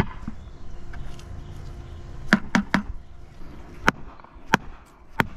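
Mallet tapping a marble paver down into fresh thin-set mortar: about six sharp knocks at an uneven pace, starting about two seconds in.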